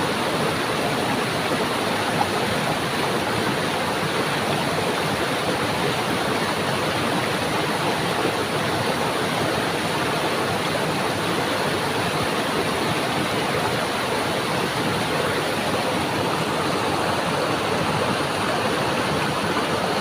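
Stream water flowing and splashing in a steady, even rush.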